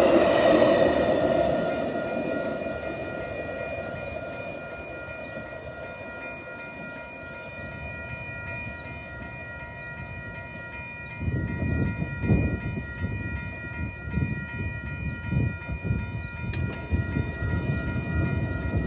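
A train rumbles past and fades away over the first few seconds, leaving a faint steady ringing of several high tones. About eleven seconds in, a louder, uneven low rumble starts suddenly and carries on.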